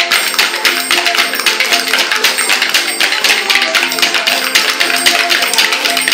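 Wooden spoons clacked together in a fast, steady rhythm, playing along with an old-time fiddle tune.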